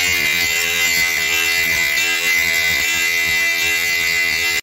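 Parkside PGS 500 A1 500 W brushed die grinder running with a cone-shaped abrasive bit against car body sheet metal, giving a steady high motor whine.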